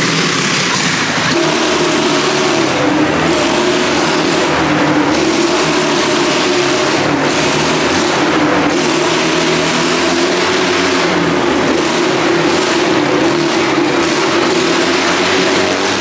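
Wall of Death motorcycle engine running loudly at raised revs. It steps up about a second in and then holds fairly steady.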